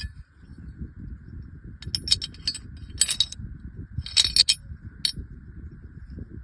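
Metal parts of a Zigana pistol clicking and clinking as it is handled during field-stripping or reassembly: several short clusters of sharp metallic clicks a second or so apart.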